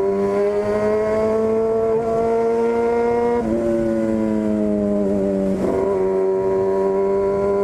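Yamaha FZ6's 600 cc inline-four running loud through a straight-through 4-into-1 aftermarket exhaust while riding. The engine note climbs steadily, drops sharply at a gear change about halfway through, then eases down.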